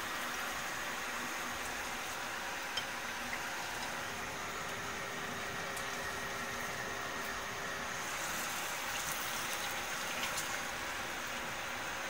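Vegetable tempura frying in hot oil in a frying pan, a steady sizzling hiss. A single sharp click comes about three seconds in.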